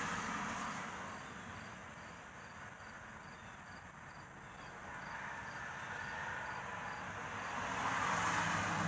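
Rushing background noise that fades in the middle and swells again near the end, with the faint, evenly spaced chirping of an insect, about two or three chirps a second. No train horn sounds.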